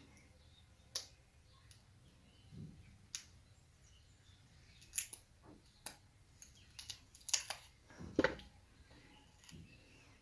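Faint, scattered clicks and small crinkles of fingers picking at and peeling the paper backing off double-sided lace-wig tape pads along the hairline.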